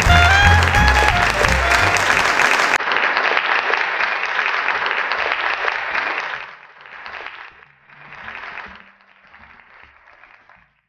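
Background music with a melody over a bass line, cutting off about three seconds in. Then the rush of waves washing against a shoreline takes over, fading after a few seconds and swelling again twice as smaller waves lap in.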